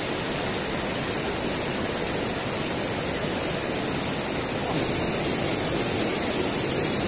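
Rushing water of a rocky mountain stream spilling over small cascades and rapids, a steady rush of white water that gets a little louder about five seconds in.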